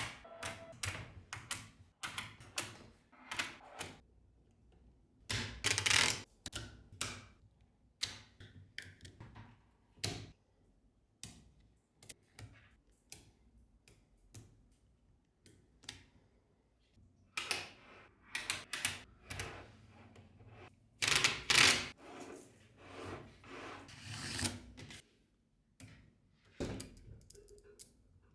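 Small magnetic balls clicking as they snap together one by one, with short bursts of clattering as clusters of balls are handled, near the start, about six seconds in and about twenty-one seconds in.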